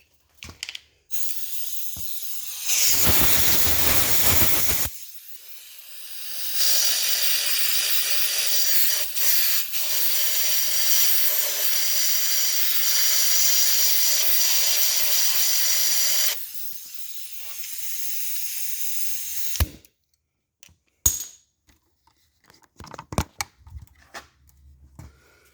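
Compressed air hissing from a pneumatic shop tool in several runs: a strong blast a few seconds in, then a long steady run with a faint high whine, then a weaker stretch. A few clicks follow near the end.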